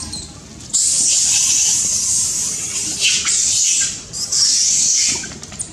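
A young macaque screaming: two long, harsh, shrill screams, the first about three seconds long, the second about a second, with a short break between.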